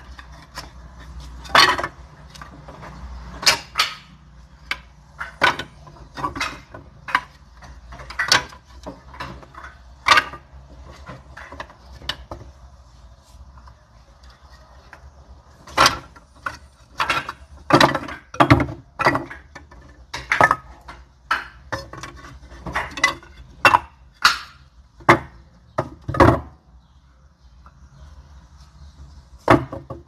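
Pieces of firewood knocking and clacking against each other in irregular sharp hits, about one or two a second, with a few short quiet gaps.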